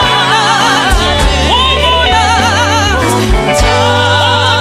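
Loud church singing: several voices sing with wide vibrato over a deep, steady low beat.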